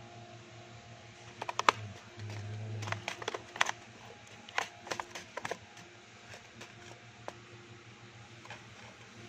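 Handling noise: scattered sharp clicks and taps in quick clusters, over a steady low hum, with a louder low buzz for about a second a couple of seconds in.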